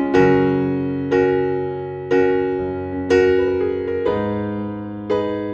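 Background music: slow keyboard chords, one struck about every second, each ringing out and fading before the next.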